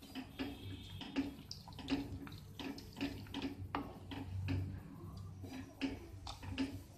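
Wooden spatula stirring gram flour into hot water in a pan: irregular knocks and scrapes against the pan, a few each second, with wet sloshing of the thickening batter. The brisk stirring keeps the besan from forming lumps.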